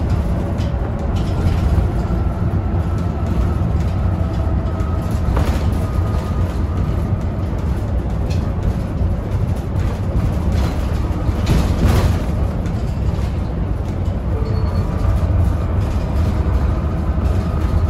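Isuzu Erga city bus heard from inside the cabin while under way: a steady low engine drone with a faint whine that falls slowly in pitch over the first few seconds and returns near the end. Short rattles and knocks come from the body, the loudest about five and a half and twelve seconds in.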